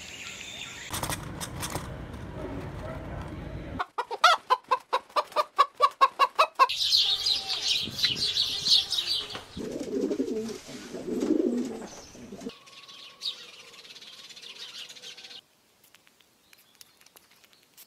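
A string of animal and bird calls cut together: a fast run of loud, evenly spaced calls at about four a second, then high chirping, then a few lower calls before it fades out near the end.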